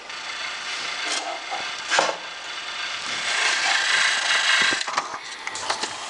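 Sharp VC-M530 VCR tape mechanism rewinding: a steady whirring rush of tape and reels spinning at speed. There is a sharp click about two seconds in, and the rush grows louder about three seconds in.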